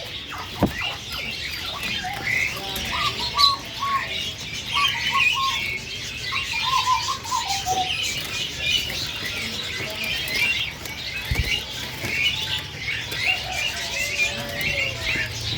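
Caged poksay hongkong laughingthrush calling: dense high chirps throughout, with a run of short whistled notes in the middle. Two brief low thumps, one near the start and one about eleven seconds in.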